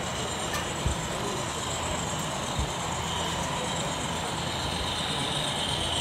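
HO-scale model diesel locomotives running, giving a steady low diesel-engine hum. A high whine grows louder from about halfway through as the locomotives come closer, over the constant background noise of a large exhibition hall.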